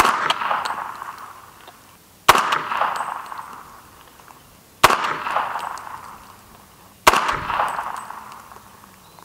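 Four shots from an unsuppressed CMMG Guard (MkG-45) .45 ACP carbine with a 16-inch barrel, fired about two and a half seconds apart. Each sharp report rings out and fades over about two seconds. The rounds stay subsonic out of the 16-inch barrel.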